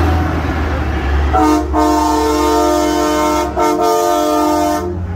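A semi truck's air horn sounds a chord of several steady notes, starting about a second and a half in and holding for about three and a half seconds with two brief breaks, then cutting off near the end. Underneath is the low hum of the truck's diesel engine as it passes.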